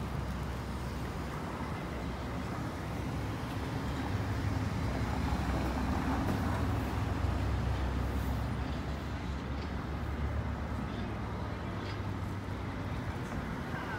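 Steady low rumble with a noisy hiss, as of city street traffic, swelling a little partway through.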